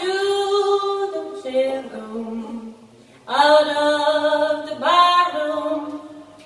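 A woman singing a slow folk song through a PA, unaccompanied, holding long notes in phrases with a short breath about two and a half seconds in.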